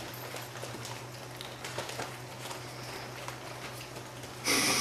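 Faint, irregular small clicks and scuffles of four-week-old Swiss mountain dog puppies moving about, over a steady low hum. A short, louder hissing noise comes near the end.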